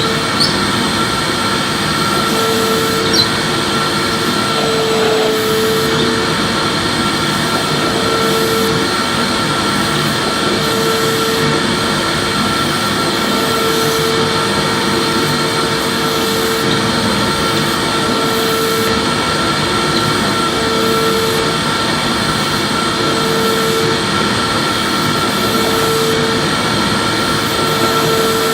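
Electric vacuum cleaner running steadily while vacuuming, with a constant high whine and a lower hum that comes and goes about every two to three seconds as it is pushed back and forth.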